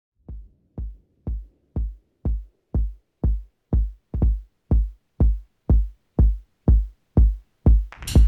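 Electronic dance music intro: a lone kick drum beating about twice a second, steadily getting louder, with hi-hats and the full beat coming in near the end.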